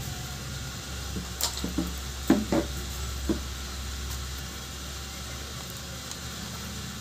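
A few light clicks and taps as a phone's charging-port board is fitted into a spring-loaded metal PCB holder clamp, over a steady low hum.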